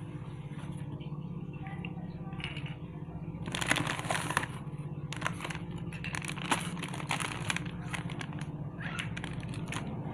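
Plastic bag of cotton balls and paper packets crinkling and rustling as they are handled and set down, in bursts of crackle about four seconds in and again over the next few seconds, over a steady low hum.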